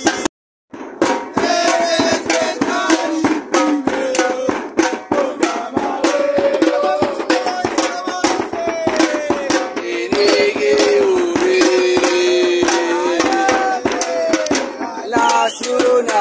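Football supporters' band drumming fast on metal-shelled drums, with a group of fans chanting a song over the beat. The sound cuts out briefly just after the start.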